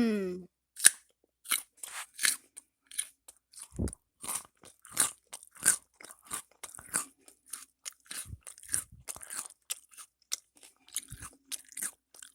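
Someone chewing a crunchy snack close to the microphone: a quick, irregular run of crisp crunches, several a second.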